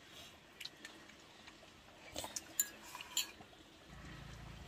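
Wooden chopsticks clicking and tapping against a small ceramic rice bowl while eating: a scattering of light clinks, the loudest a little past two seconds in. Near the end a steady low rumble of background noise sets in.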